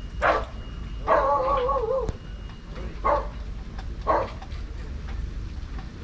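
A dog barking, with short single barks spaced a second or more apart. About a second in there is one drawn-out, wavering whine lasting about a second.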